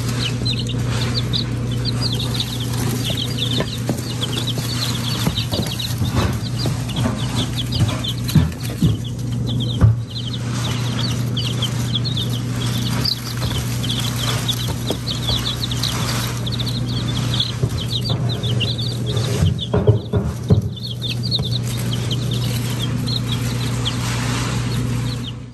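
A brood of young chicks peeping continuously, many short high peeps overlapping, over a steady low hum. A few knocks stand out about 8 to 10 seconds in and again about 20 seconds in.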